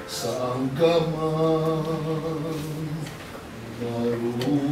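A slow communion hymn being sung, with long held notes and a short lull about three seconds in.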